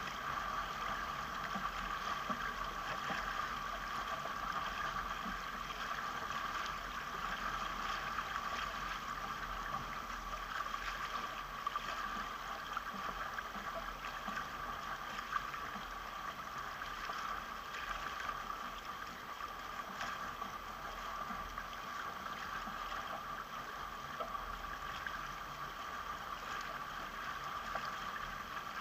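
Steady rush and splash of water along a sailing catamaran's hull as it moves under sail.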